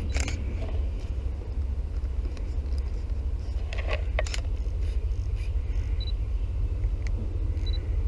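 Steady low rumble on the camera microphone, with a few light clicks and two short high beeps in the second half.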